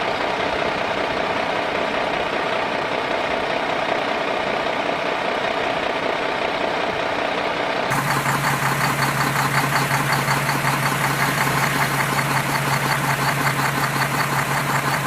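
Vehicle engine idling steadily, then about halfway through it cuts abruptly to a different engine with a fast, even chugging beat.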